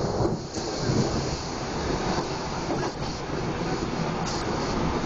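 Prameks commuter train running at the platform: a steady rumble and hiss, with a few brief knocks.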